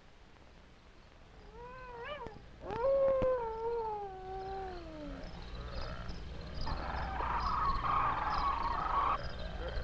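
Howling animal-like cries: a short wavering call, then a long call that slides downward over about two seconds, then a rougher, harsher cry near the end. Faint high chirps repeat about twice a second behind them.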